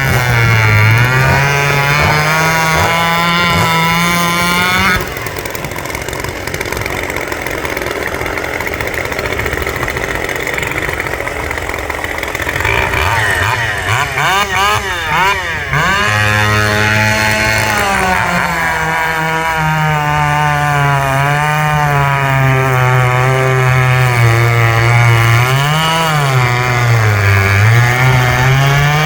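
Two-stroke hot saw class racing chainsaws running at full throttle. The high engine pitch dips briefly several times, as under the load of a cut, and a rougher, quieter stretch comes about five seconds in before full revs return.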